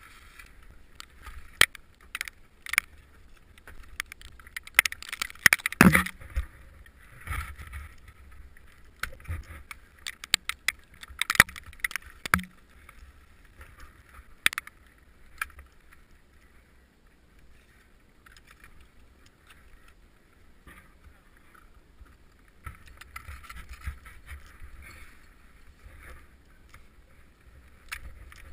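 Ice axes striking and scraping on thin ice and granite: irregular knocks and scrapes, heaviest about five to six seconds in and again around eleven seconds, then sparser for a while, over a steady faint hiss.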